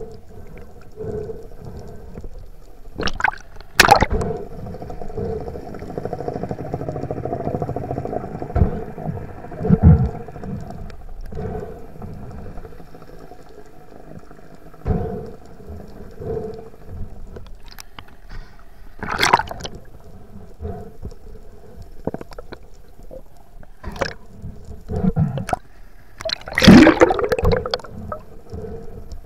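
Water heard through an underwater camera housing: muffled sloshing and gurgling, with a few sharp knocks, the loudest near the end.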